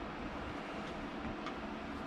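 Steady background hum and hiss with two faint light clicks, about a second in and again half a second later.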